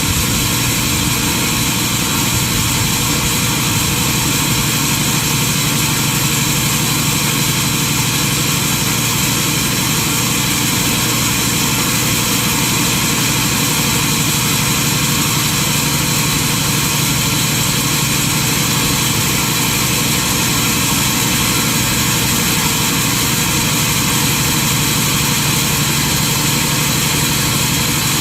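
Sawmill machinery running with an even, unchanging drone, with no sign of a blade entering or leaving the wood.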